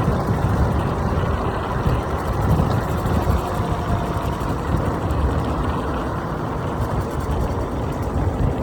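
Riding noise from an electric scooter on the move: wind buffeting the microphone in uneven low gusts over a steady rumble of tyres on the road.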